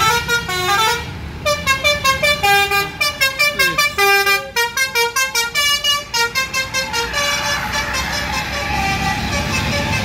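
Basuri telolet multi-tone horn on a Sumber Alam coach playing a quick melody of short notes stepping up and down in pitch. About seven seconds in the tune stops and gives way to the noise of the coach's engine and the passing traffic.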